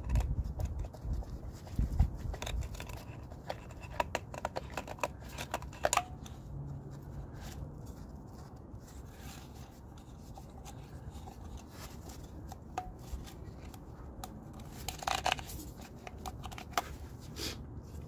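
Clicks, scrapes and rustling from handling the old and new oil filter cartridge parts, with a couple of dull thumps near the start and about two seconds in. The clicks are dense for the first few seconds, thin out, then return near the end.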